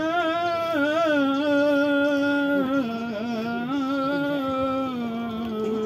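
A man's voice chanting an Islamic recitation in long, drawn-out notes with wavering ornaments, the pitch stepping down in the second half.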